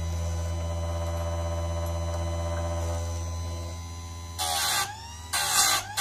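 Einhell electric chain sharpener's motor running with its grinding wheel spinning free, a steady hum. About four and a half seconds in, the wheel is brought down on a chain cutter tooth in two short grinds, and a third grind starts at the very end.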